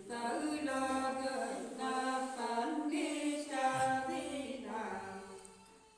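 A woman singing an unaccompanied Nùng folk song, in long drawn-out notes with short breaks between them. The phrase fades away near the end.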